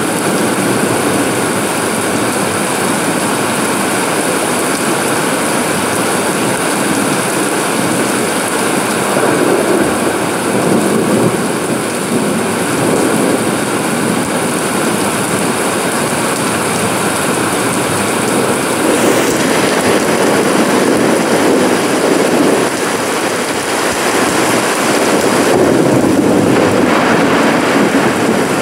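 Steady rain falling on a paved courtyard and its potted plants: a continuous dense hiss that swells gently a few times.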